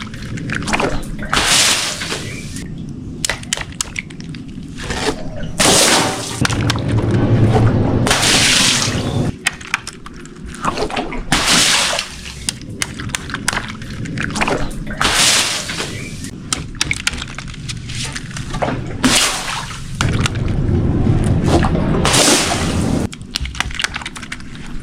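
Water sloshing and splashing in repeated bursts.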